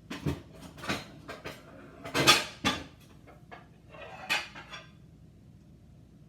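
Pans and dishes clattering and knocking together as someone gets a baking pan out, with a quick run of sharp clanks and clinks. The loudest comes about two seconds in, and it stops about five seconds in.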